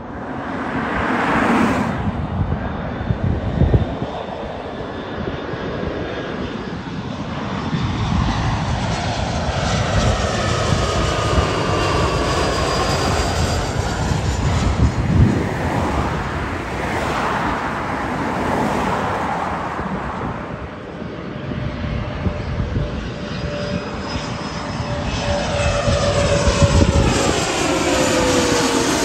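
Twin-engine jet airliners on final approach passing low overhead one after another, their engine noise swelling and fading as each goes by. Near the end an engine whine falls steadily in pitch as a jet passes.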